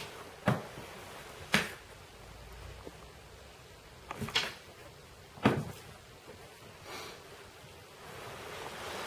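A few short, sharp knocks and taps, about four spread over several seconds, over quiet room tone.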